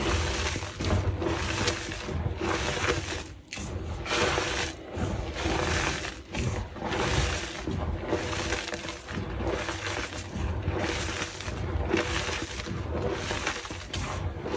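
Hands squeezing and crumbling handfuls of powdery reformed gym chalk. It makes a crumbly crunch and rustle that comes again every second or so, with brief pauses between handfuls.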